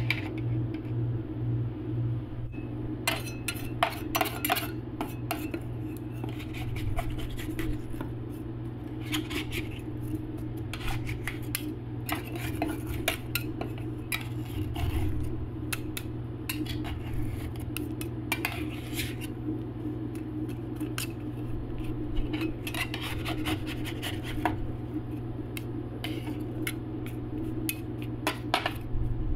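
Two steel spatulas scraping, chopping and tapping on a steel ice-cream-roll cold plate as the freezing ice-cream base is broken up into flakes. Irregular metal-on-metal clicks and scrapes run over a steady low hum.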